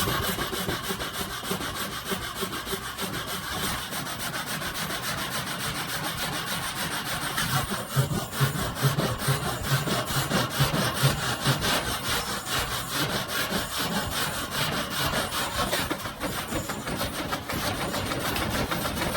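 Sawmill blade cutting through a log, a steady rasping saw noise with a machine hum underneath.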